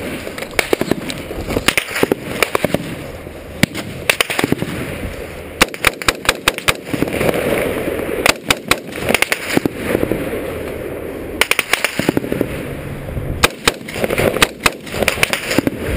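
Small-arms gunfire in a firefight: repeated short, rapid bursts of shots, with single shots between, throughout.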